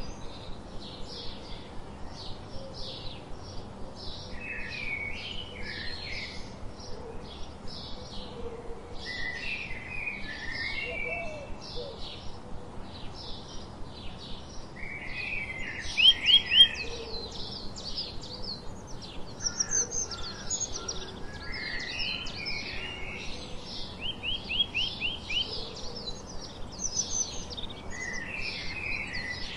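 House sparrows chirping: a steady run of short chirps, about two a second, with louder, quicker runs of notes about halfway through and again near the end.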